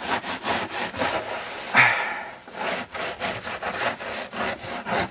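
Deep snow crunching and scraping in quick rough strokes, several a second, with one louder crunch about two seconds in.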